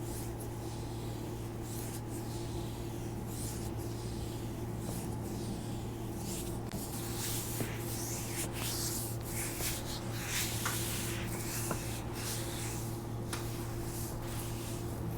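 Hands rubbing and pressing along a bare foot in deep arch and heel massage strokes: a run of repeated skin-on-skin swishes, busiest in the middle, over a steady low hum.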